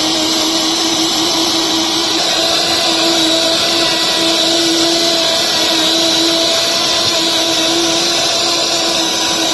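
Small cooker-style high-speed electric flour grinder running steadily while pulverising wheat grains into flour: a loud, even whirring hum with a constant whine.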